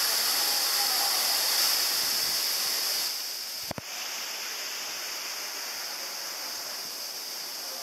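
Waterfall rushing as a steady hiss of falling water. A little over three seconds in it cuts to a quieter roar of falling water, with one sharp click at the change.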